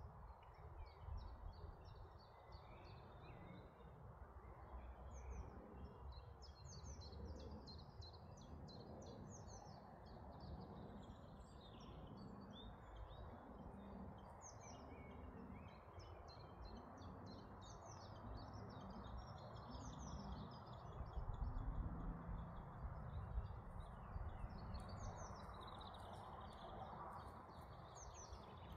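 Several small birds singing and chirping, with many short trills and rising chirps, over a faint low rumble of background noise.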